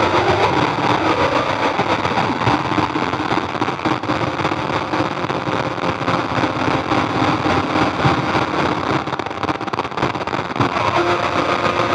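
Roland V-Synth XT synthesizer playing an experimental noise drone, shaped by fingers on a Haken Continuum Fingerboard: a dense, distorted wash of noise with faint held tones beneath it. It eases slightly near the end, when the held tones come forward again.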